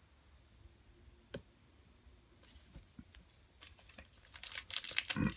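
Crinkly rustling of trading-card pack wrapping and cards being handled, faint at first and growing louder over the last second or two, with a single click about a second in.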